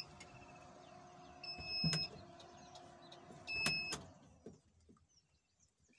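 A car's electronic warning beeper giving short beeps about two seconds apart, twice, over a steady low hum that fades away after about four seconds.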